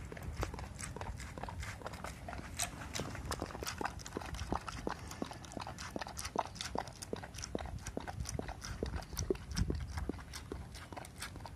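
Dog licking an empty plastic food tray: a quick, irregular run of wet clicks from its tongue and snout against the plastic.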